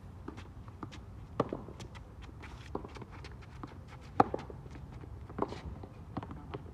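Tennis rally on a hard court: sharp knocks of the ball off rackets and court, loudest about a second and a half in and about four seconds in, among many quick footsteps and shoe scuffs of the players running.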